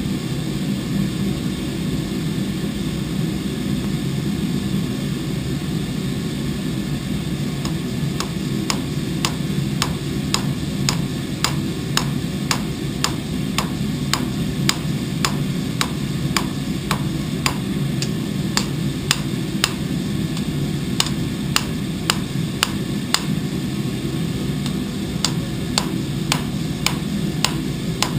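Hand hammer striking a red-hot steel blade on an anvil: sharp blows start about eight seconds in and go on at roughly two a second. A steady low drone runs underneath.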